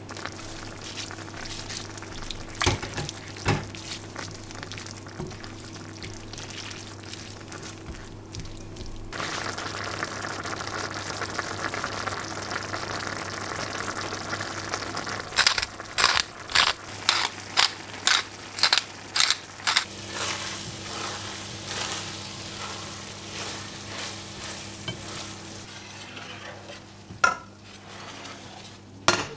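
Minced meat, onion and rice frying in a stainless steel pan, sizzling steadily and growing louder about nine seconds in. Partway through, a spatula stirs and scrapes against the pan in about two strokes a second for several seconds, and a single sharp knock comes near the end.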